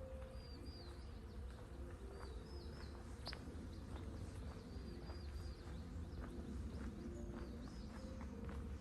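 A songbird repeating a short, high, warbling chirp phrase every second or two, over a low steady hum.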